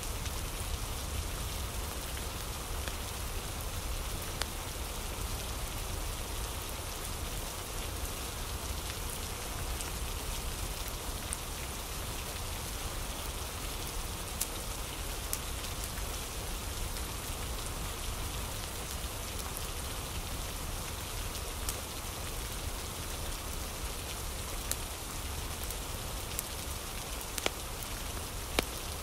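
Steady rain falling, a recorded rain ambience, with a few sharp ticks scattered through it.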